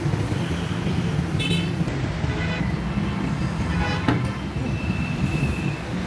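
Steady road traffic rumble with several short vehicle horn toots, and a single sharp knock about four seconds in.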